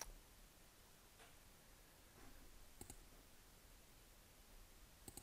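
Computer mouse clicking three times, faint against near silence: once at the start, again almost three seconds in, and again near the end.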